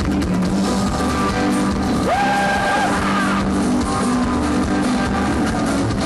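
Rockabilly band playing live on stage, with acoustic and electric guitars and a drum kit. About two seconds in, a note slides up and is held for about a second.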